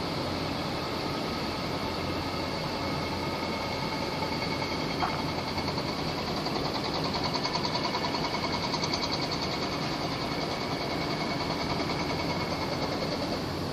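A large container ship's engines drone steadily across the water, with a rapid mechanical pulsing that swells in the middle and fades again, over a constant wash of wind and water noise. A single short click comes about five seconds in.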